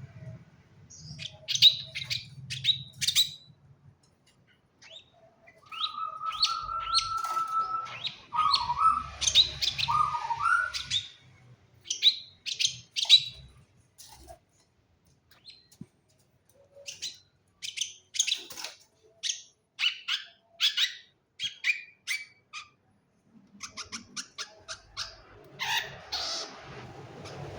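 Long-tailed shrike (cendet) calling: runs of short, sharp, high chirps in quick clusters, with pauses between them. A lower held whistle and a few wavering notes come in about six to ten seconds in.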